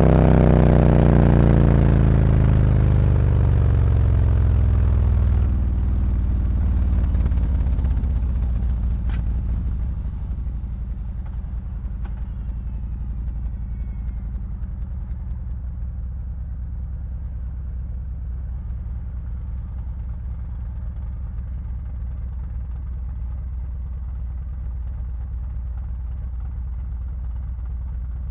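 Harley-Davidson Road Glide's V-twin engine through SuperTrapp slip-on mufflers with internal discs. The revs fall over the first several seconds as the bike slows, then it idles steadily.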